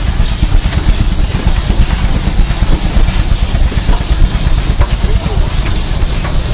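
A. D. Baker steam traction engine rolling past at close range: a loud, uneven low rumble with a few light clanks.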